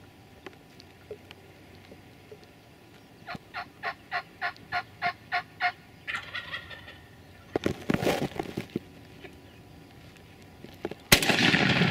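Wild turkey calling: a run of about ten evenly spaced yelping notes, then rougher, louder calls. Near the end a shotgun blast goes off at the strutting gobbler.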